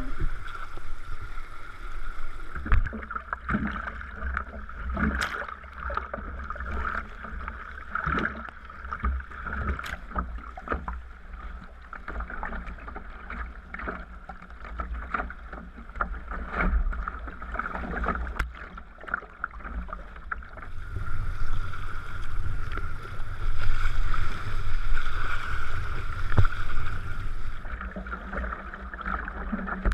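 Sea kayak being paddled: water washing along the hull and irregular splashes from the paddle blades, over a low rumble. The water noise grows louder and brighter about two-thirds of the way through.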